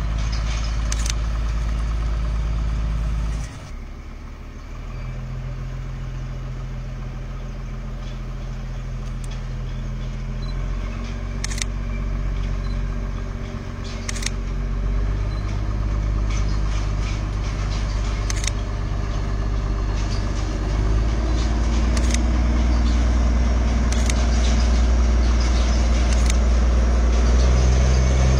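A Darjeeling Himalayan Railway train's engine running steadily, its pitch shifting in steps and getting louder toward the end, with a few sharp clicks.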